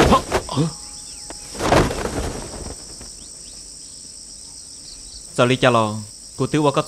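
A few sharp impact sounds right at the start and a whoosh about two seconds in, then a steady background hiss, and a man's voice from about five and a half seconds in.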